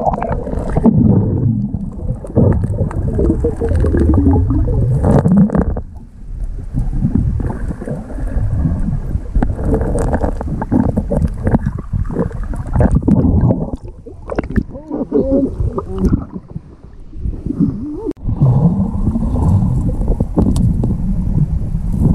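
Rushing and gurgling river rapids heard through an underwater action camera: a loud, muffled churning with little treble, dipping briefly a few times.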